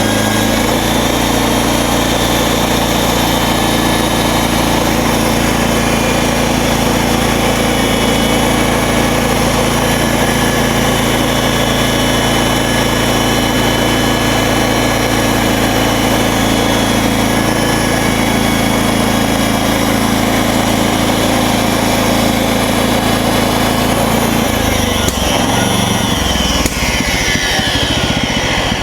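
MechMaxx SM32 bandsaw mill's gas engine running steadily with the band blade turning, running smoothly without grinding now that the mill is aligned. About 25 seconds in the engine's note changes, and a few falling whines follow near the end.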